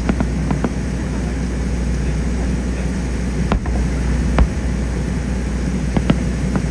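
Aerial fireworks shells bursting at a distance: a continuous low rumble with a few sharp cracks spread through it.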